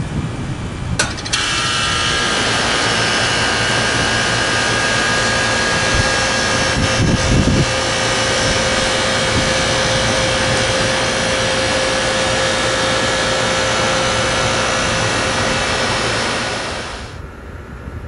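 2001 American Standard Allegiance 10 three-ton central air conditioner's outdoor unit starting up: a sharp click about a second in as it switches on, then the compressor and condenser fan come on together and run steadily with a hum and several steady whining tones. Near the end the sound drops abruptly to a quieter level.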